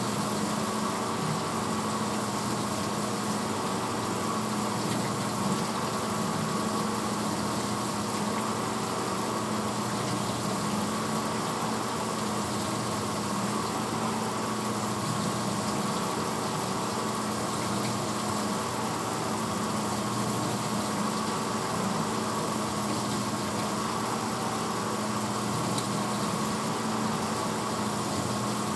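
1986 Hotpoint Potwasher dishwasher running mid-cycle: a steady motor and pump hum with an even wash of water noise over it, unchanging throughout.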